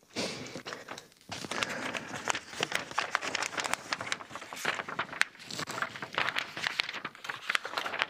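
A folded paper sheet being unfolded and handled, rustling and crinkling in quick crackly bursts, with a short pause about a second in.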